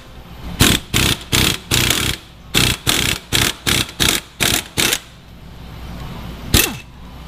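Impact wrench fired in a quick series of short trigger pulls, about a dozen in four seconds, with one more short burst near the end. It is hammering the screw of a bushing press that pushes the rear camber bushing out of the suspension knuckle.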